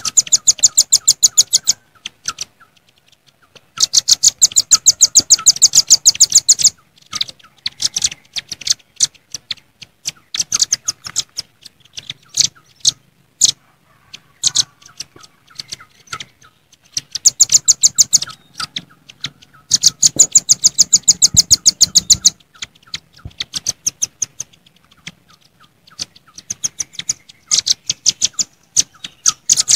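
Velvet-fronted nuthatches calling together: rapid runs of sharp, high chipping notes, about eight a second, each run lasting a few seconds, with scattered single notes between runs. The calls are the noisy calls the birds use to challenge a rival.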